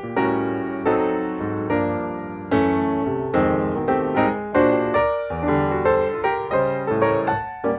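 Background piano music: chords struck every half second to a second, each decaying before the next.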